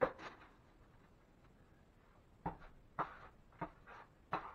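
Sharp tap right at the start, then a steel drywall taping knife scraping quickset hot mud on the ceiling in four or five short, quick strokes, about two a second, in the second half.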